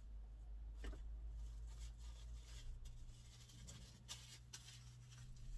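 Faint rustling and a few light clicks as hands handle food at a plastic bowl, over a steady low hum.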